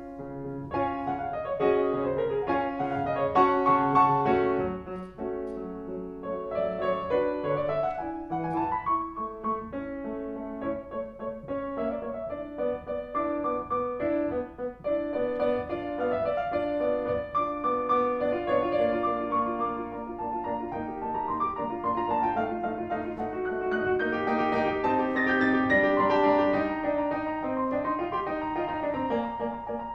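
Background piano music, a flowing melody with many changing notes.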